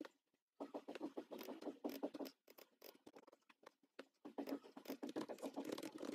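Faint, rapid clicking and tapping of a computer keyboard and mouse, in two dense runs with a sparser lull near the middle.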